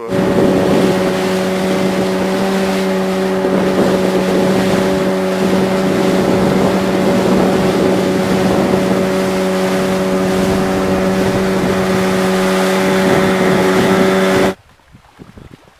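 Outboard motor of an inflatable boat running at a steady speed, heard from aboard: a loud, even drone over wind and water noise. It cuts off abruptly about a second before the end.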